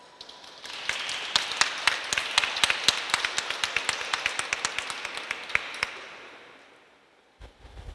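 Audience applauding, beginning about a second in with a few loud, close claps standing out, and dying away after about six seconds. A low thump near the end.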